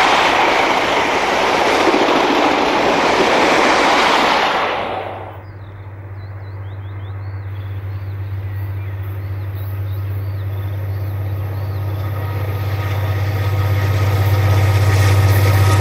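Countrylink XPT passenger carriages rushing past: a loud, steady rush of wheels on rail and wind that cuts off about five seconds in. Then a V/Line A class diesel locomotive hauling a passenger train approaches, its engine a low, steady drone that grows gradually louder.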